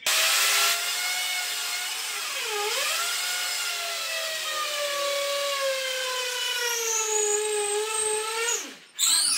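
Corded electric drill boring into the wall: a steady motor whine whose pitch dips sharply under load about two and a half seconds in, then slowly sinks as it bites. It stops near the end, followed by a short loud burst.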